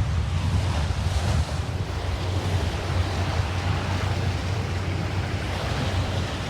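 Sailboat's engine running steadily under way, a constant low drone, with wind noise on the microphone over it.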